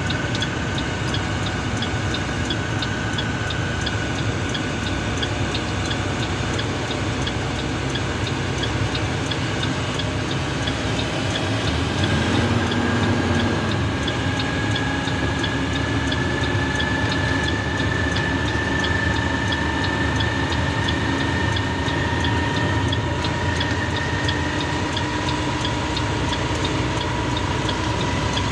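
Vehicle engine and road noise heard from inside the cab while driving on a highway, with a whine that slowly rises in pitch as the vehicle picks up speed and a faint regular ticking.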